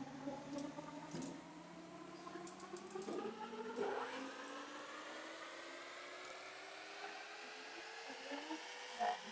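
A lathe's motor whirring, its pitch rising slowly and steadily as the spindle speeds up, with some brief scraping noises a few seconds in.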